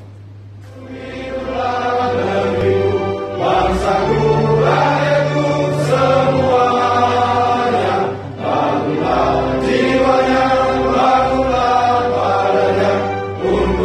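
A large group of people singing a song together in unison, starting about a second in, with a brief pause between phrases near the middle, over a steady low hum.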